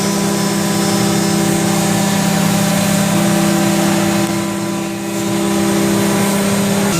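Haas VF-4SS Super Speed CNC machining center's spindle running at its maximum 12,000 RPM: a steady, even machine whine.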